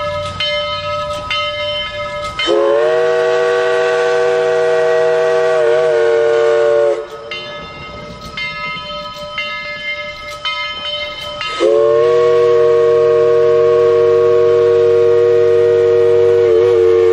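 Southern Railway 4501 steam locomotive sounding its steam whistle in two long, loud blasts. Between the blasts a bell rings about twice a second.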